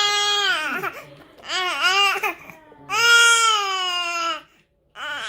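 A baby vocalizing in three long, high-pitched drawn-out sounds, each about a second long, with short pauses between them.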